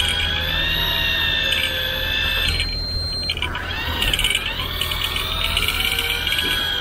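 Electric fishing reel's motor whining as it winds in line, its pitch wavering with the load on the line. The whine breaks off briefly near the middle with a few clicks, then picks up again, over a steady low hum.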